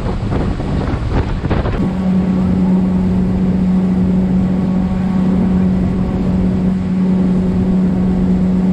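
Pontoon boat's motor running steadily at cruising speed, with water rushing past the hull and wind buffeting the microphone. From about two seconds in, the motor's steady hum is the loudest thing.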